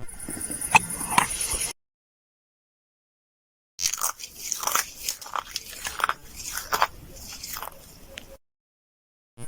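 Hand-made foley of crunchy biting and chewing: a short crunchy snippet with two sharp clicks, then, after a cut to dead silence, a run of irregular crunches lasting about four and a half seconds that trails off quieter near its end.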